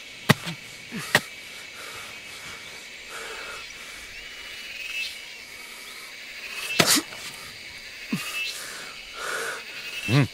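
Rural outdoor ambience: a steady high insect drone, with a few sharp clicks or knocks, one near the start and one about seven seconds in.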